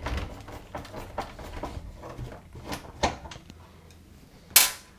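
Small clicks and knocks of a screwdriver, screws and plastic parts as screws are taken out of a washer's plastic control panel assembly. There is one sharp, loud click near the end.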